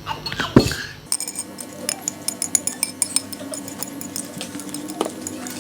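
Cutlery clinking and scraping against a plate while noodles are eaten, with many light, quick clinks. There is a sharper knock about half a second in.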